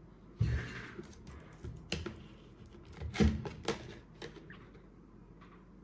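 Scattered light clicks and taps from handling a phone and small repair items on a work surface, with a short scrape about half a second in and the loudest knock about three seconds in.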